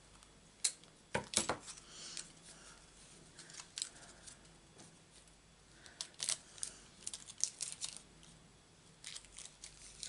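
Scissors cutting a length of ribbon: a few sharp snips in the first second and a half, then scattered light clicks as the ribbon and scissors are handled.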